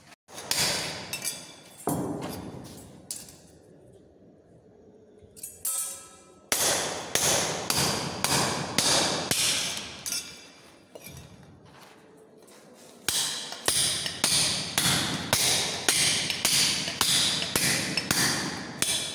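Hammer blows on an interlocking brick, cutting it in two: a few strikes, a pause, then steady runs of about two blows a second broken by a short pause.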